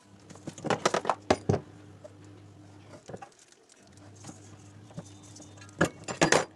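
Metal tools and parts being handled during a washing-machine repair: two clusters of sharp clinks and knocks, one about a second in and one near the end, over a steady low hum.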